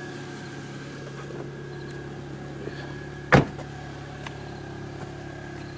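Pontiac Wave's four-cylinder engine idling steadily after a cold start. A little past the middle, a single loud slam, the car door being shut.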